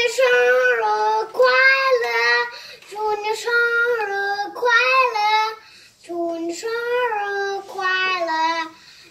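A child singing solo, one high voice holding notes in short phrases with brief breaths between, pausing about six seconds in before going on.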